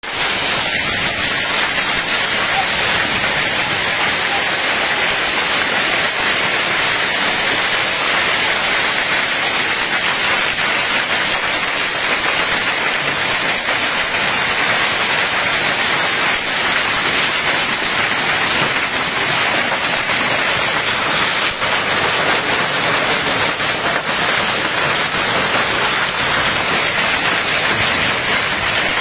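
Heavy rain falling steadily on brick paving and corrugated metal sheeting, an unbroken even hiss of a downpour.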